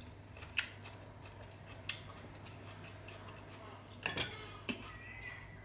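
Metal fork clicking and scraping against a cut-glass salad bowl while salad is picked up: a few light, separate clicks, with a small cluster about four seconds in.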